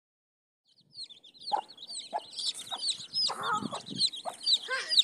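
Aseel hen clucking, several low clucks, while her chicks peep in rapid, high, falling chirps. The sounds start about a second in.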